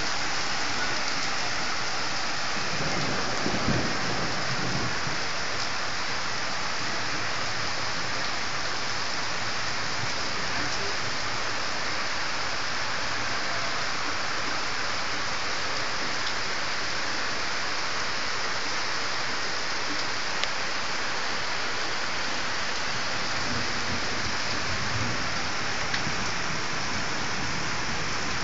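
Rain falling steadily in an even hiss, with a low rumble about three to four seconds in.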